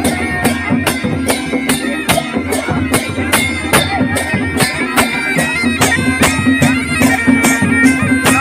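Kumaoni chholiya wedding band playing: a masakbeen bagpipe holds a steady drone under a reedy melody, over a steady drum beat of about two to three strokes a second.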